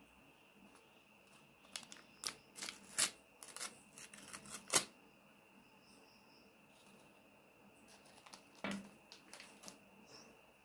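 A crumpled paper wrapper being unfolded and crinkled in the hands: a cluster of crackles and rustles from about two to five seconds in. A single soft knock near nine seconds and a few light clicks follow as small plastic toys are handled and set down on the tabletop.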